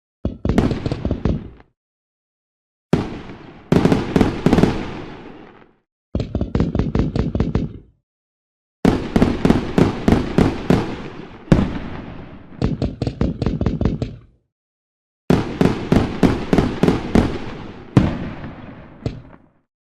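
Fireworks sound effect: five volleys of rapid bangs and crackles, each lasting one to five seconds, separated by short gaps of complete silence.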